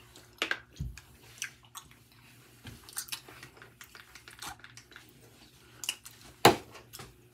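Handling of a small plastic face-wash bottle as bubble cleanser is dispensed into a hand: scattered light clicks and soft wet sounds, with one sharper click about six and a half seconds in.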